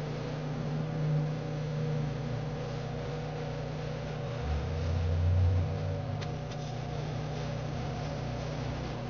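A steady low mechanical hum from a running machine, with a deeper swell for about a second around the middle.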